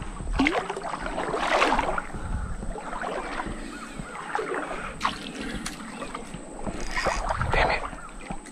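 Shallow water sloshing and splashing in irregular swishes, with stronger splashes about a second and a half in, about five seconds in, and again near the end.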